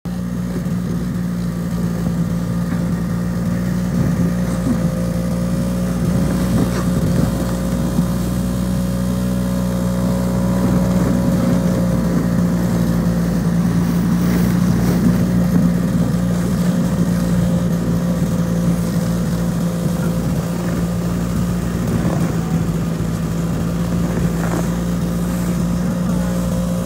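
Snowmobile engine running at a steady, even speed while towing a loaded cargo sled over packed snow.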